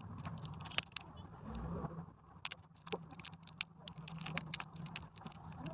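Plastic sweet packaging crinkling and crackling as it is handled, with many small irregular clicks.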